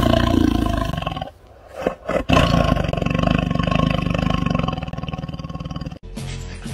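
Tiger growling in two long, rough roars: the first ends about a second in, and the second starts just after two seconds and lasts about four seconds. Background music takes over near the end.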